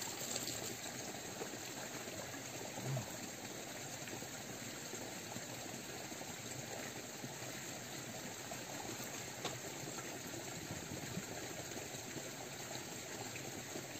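Small mountain stream running steadily while a canteen is filled in it, with a single dull knock about three seconds in.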